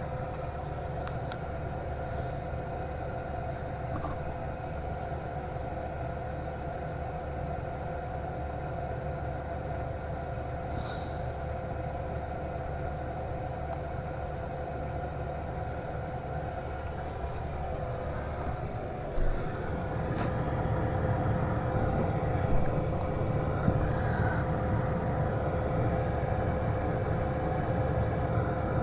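Diesel air heater running at maximum setting, a steady rumble with a constant whine from its fan. About two-thirds through there is a short knock and the rumble grows louder.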